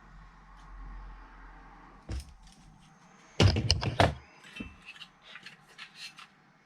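Handling of hard plastic and metal parts: a knock about two seconds in, a loud clatter a second and a half later, then a quick run of small clicks and taps.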